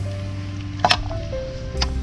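Background music: held notes stepping from pitch to pitch over a steady bass line, with two sharp percussive hits about a second apart.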